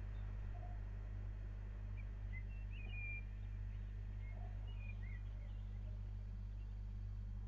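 Scattered short bird chirps and whistles, some rising or falling, over a steady low hum.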